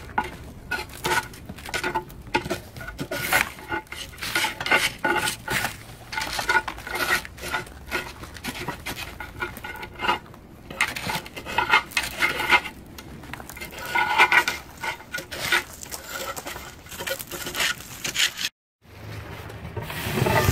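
Metal root tool scraping and clinking against the inside wall of a ceramic bonsai pot as the soil around the edge is cut loose to free the rootball. It makes a fast, irregular run of rasping scrapes and knocks. The sound cuts out briefly near the end.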